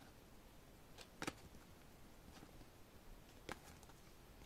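Near silence with a few faint clicks as a stack of card photocards is shuffled in the hands, one card slid over another: two close together about a second in and one more near the end.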